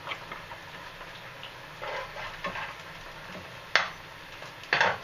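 Burger patties sizzling faintly in a frying pan, with light handling of produce on a wooden cutting board and one sharp knock near the end.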